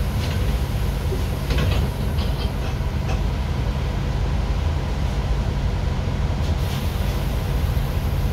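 Steady low engine drone and road rumble heard from inside a city bus's cabin as it creeps forward in traffic, with a few light rattles from the body or windows.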